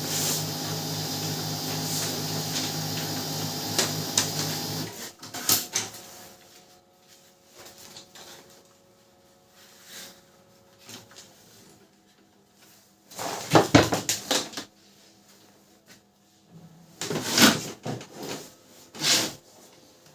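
Canon LBP6030 laser printer running with a steady mechanical whir for about five seconds, then cutting off suddenly. After that come a few short bursts of clattering and knocking, the loudest a little past halfway.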